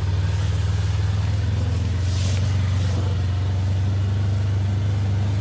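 Side-by-side utility vehicle's engine running at a steady low drone while driving, with a brief hiss about two seconds in.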